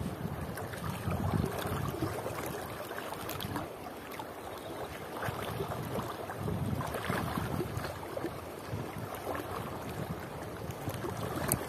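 River water flowing steadily, with wind buffeting the microphone in uneven low gusts.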